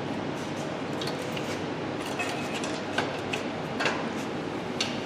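Hand tool clinking and tapping against metal about six times, irregularly spaced, while the transmission is worked loose from the engine, over a steady background hiss.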